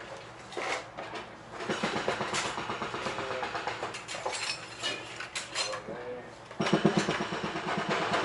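Hand tools and metal parts clinking and clattering as they are rummaged through in search of a hole saw, in irregular knocks, with a louder burst of clatter near the end.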